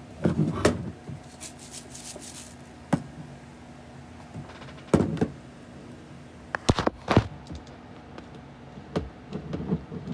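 A Spin Master Etch A Sketch being shaken by hand to erase the drawing: irregular rattles and sharp knocks from the plastic case, coming in several separate bursts a few seconds apart.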